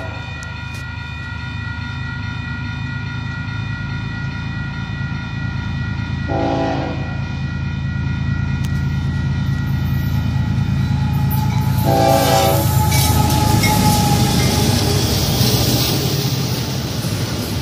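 Grade crossing bell ringing steadily while a slow diesel freight train approaches, its locomotive horn sounding two short blasts, about six seconds in and about twelve seconds in. The train's rumble and wheel noise build until double-stack container cars roll past with clickety-clack near the end.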